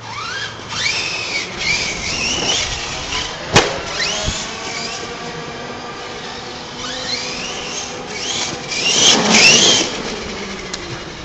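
Radio-controlled off-road cars driving, their motors whining up and down in pitch as they speed up and slow down, with a sharp knock about three and a half seconds in and the loudest run near the end.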